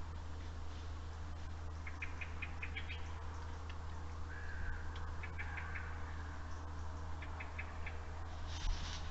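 Animal calls at night: groups of five or six short, high chirps repeated every two or three seconds, with one longer, slightly falling call about four seconds in. A steady low electrical hum runs underneath, and there is a small thud near the end.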